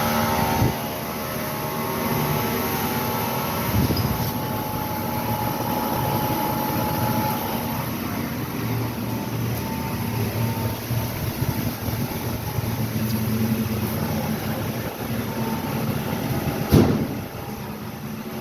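Car driving on the road: steady tire and road hum with the engine beneath it, the drone the customer blames on two newly fitted tires. A short knock about four seconds in and a louder one near the end.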